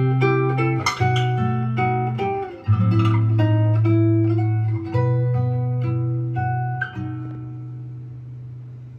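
Instrumental break of a slow ballad played back over a hi-fi system's loudspeakers: plucked guitar notes over deep sustained bass notes, fading away over the last couple of seconds.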